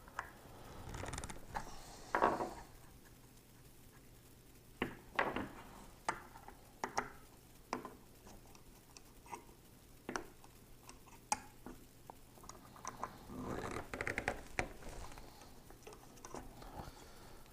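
Scattered light metal clicks and knocks from a Lansky knife-sharpening clamp being handled and adjusted, with a quick run of rattling clicks near the end.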